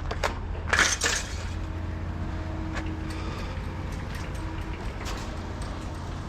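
A vehicle's engine running with a steady low hum, a loud short clatter about a second in, and light knocks and rattles.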